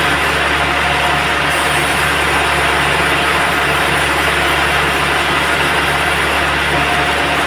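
Band sawmill running steadily: a continuous loud machine drone with a constant low hum.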